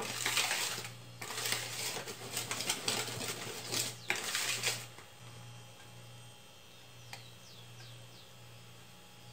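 Spoon stirring thick cake batter in a plastic bowl: quick, irregular wet scraping strokes for about five seconds, then it stops. After that there is only a faint click and a few faint high chirps.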